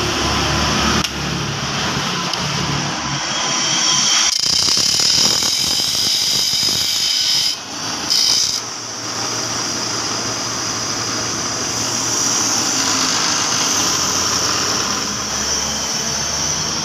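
Bench grinder running while a small metal power-window motor part is pressed against the wheel to grind it down so it will fit. The grinding hiss is loudest from about three to seven seconds in, breaks off briefly, returns in a short burst, then goes on more quietly.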